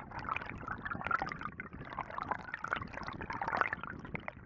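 River current rushing and gurgling around a submerged camera, with many small clicks throughout.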